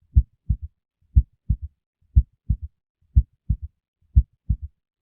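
Recorded heartbeat from an auscultation quiz, about one beat a second. Each beat is a strong first heart sound followed about a third of a second later by a doubled second sound, with quiet gaps between the beats.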